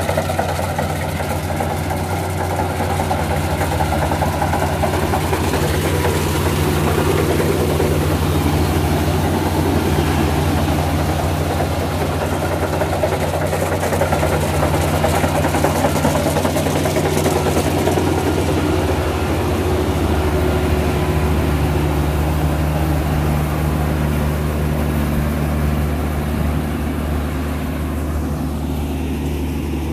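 Kubota DC-35 rice combine harvester running steadily as it cuts and threshes rice, its diesel engine humming low under the clatter of the cutter and threshing drum. Near the end the sound thins and drops a little as the machine pulls away.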